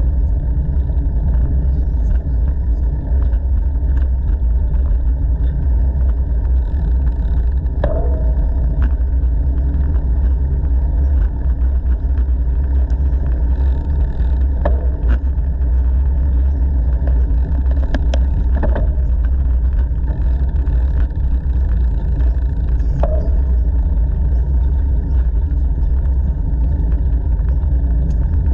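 Wind buffeting a GoPro action camera's microphone while riding a bicycle on a paved path: a loud, steady low rumble. A few short sharp ticks stand out about 8, 15, 18 and 23 seconds in.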